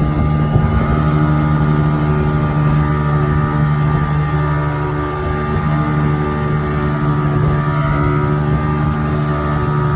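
Motorboat engine running steadily, towing a banana boat, a constant engine note at an even level.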